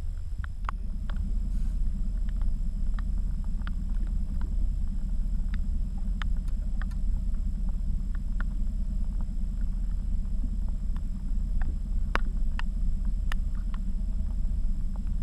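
Steady low rumble aboard a small aluminium fishing boat on open water, with scattered irregular sharp ticks throughout.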